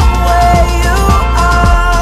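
Music with a steady kick-drum beat, about two beats a second, over a bass line and a melody.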